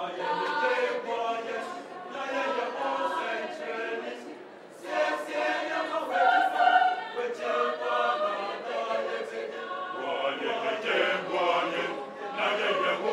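A choir singing together, with a short dip in the singing about four and a half seconds in.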